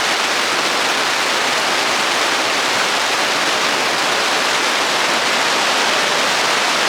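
Heavy rain from a thunderstorm falling in a steady downpour.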